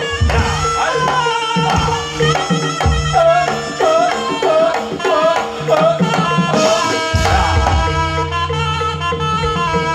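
Live Javanese jaranan gamelan music accompanying a barongan dance: kendang hand drums keeping a driving rhythm under a wavering, bending melody line and a steady held tone.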